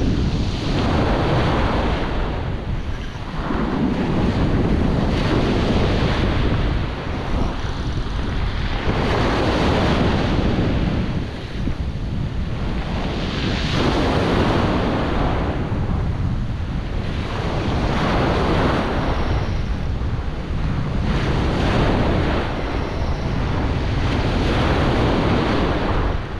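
Ocean surf breaking and washing up the beach close by, surging every three to four seconds, with strong wind buffeting the microphone underneath.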